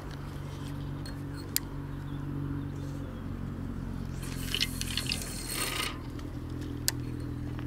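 Fishing rod cast: a rushing hiss of line leaving the reel with small clicks of the reel mechanism about four seconds in, and single sharp clicks before and after it. A steady low hum runs underneath.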